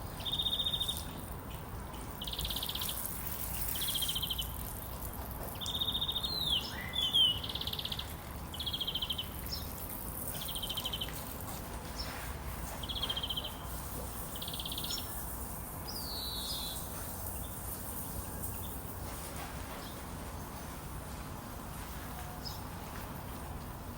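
Birds chirping: a run of short, high trilled calls repeated about once a second, with a few sweeping notes mixed in, stopping about seventeen seconds in.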